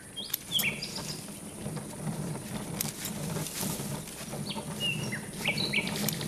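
Garden ambience from a cartoon soundtrack: birds chirping in short, scattered calls over a steady high insect hiss, with a quick run of chirps near the end.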